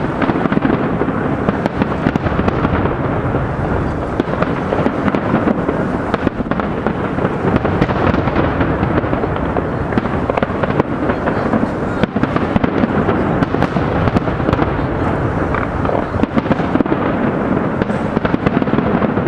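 Large fireworks display: a continuous barrage of shell bursts and crackling bangs, fired in quick succession without a pause.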